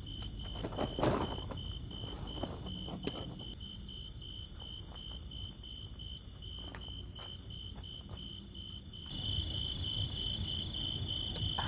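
Insects chirping in a steady pulsed rhythm, about two pulses a second, with higher insect trilling over it and low rumbling background noise. A few sharp knocks come about one and three seconds in, and the whole sound gets louder about nine seconds in.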